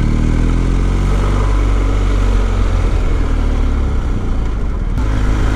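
BMW R1250's 1254 cc boxer-twin engine running on the move, holding fairly steady revs, then picking up again after a short break near the end.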